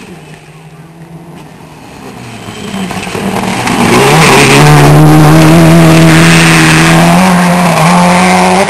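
Rally car engine at full throttle, approaching and passing close. The engine note rises as the car nears, then holds loud and steady for several seconds.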